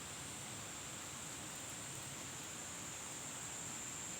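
Steady outdoor hiss with a continuous high-pitched insect trill running through it.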